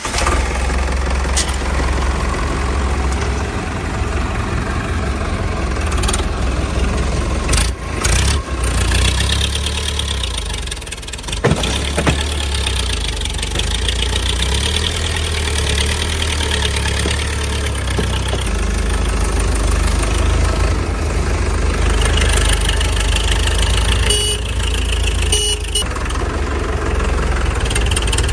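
Tractor engine sound running steadily with a low, even engine note, dropping out briefly twice about eight seconds in, with a short sharp click a few seconds later.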